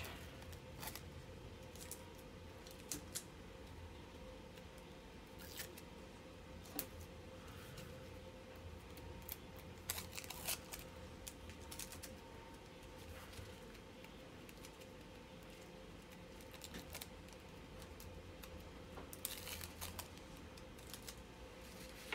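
Packing tape being peeled off a rolled, wrapped canvas, in scattered short rips and crinkles of the wrapping, over a faint steady hum.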